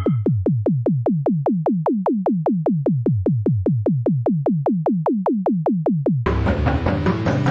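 Synthesized electronic music made in BeepBox: a steady run of synth drum hits that drop sharply in pitch, about four or five a second. About six seconds in, the full arrangement of drums and synths comes in.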